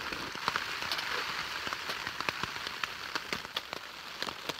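Steady rain falling, with many sharp drop impacts ticking over an even hiss.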